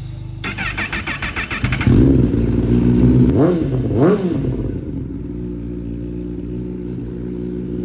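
A Kawasaki 1000 cc inline-four superbike with an SC Project exhaust being started: the starter cranks rapidly for about a second and a half before the engine catches, then the throttle is blipped twice in quick succession and the engine settles into a steady idle.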